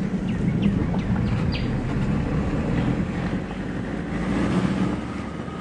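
Engine and road noise of a moving vehicle heard from inside: a steady low rumble. A few brief high chirps come in the first couple of seconds.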